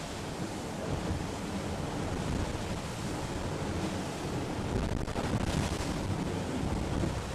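Steady rush of sea water and wind along the hull of an IMOCA 60 racing yacht under way, heard from inside the cabin. A faint knock comes about five seconds in.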